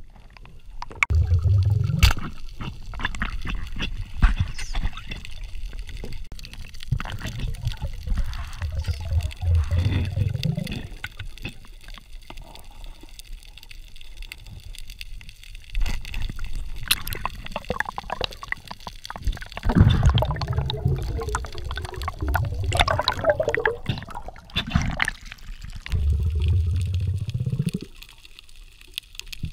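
Water sloshing and gurgling around an underwater diving camera, in repeated swells a second or two long, with scattered sharp knocks.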